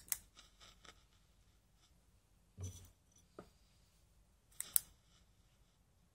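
A few short, crisp crackles and clicks of a small pet rummaging in paper-pellet bedding. One cluster comes at the start, a louder crackle with a soft thump follows a little under halfway, and a sharp double click comes about three quarters of the way through.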